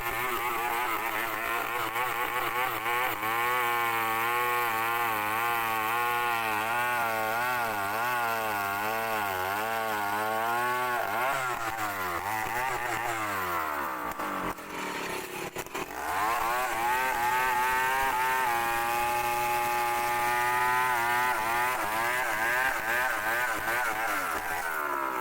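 Chainsaw running under load as it cuts into the trunk of a large bangkirai hardwood tree, its pitch wavering as the chain bites. About eleven seconds in the engine slows and briefly drops off, then revs back up and runs high and steady.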